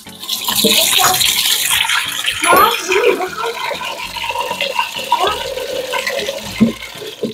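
Water running, a loud steady hiss that is strongest for the first two or three seconds and then continues lower.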